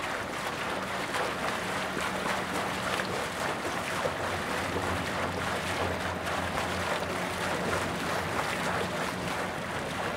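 Continuous splashing of a swimmer's kicking legs in river water, with the low steady drone of a cargo barge's engine underneath that fades out near the end.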